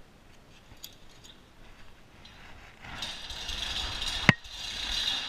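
Hand chain of a roll-up steel bay door being pulled, the chain clattering through the door's geared hoist. The rattle starts about three seconds in, with one sharp clank about a second later.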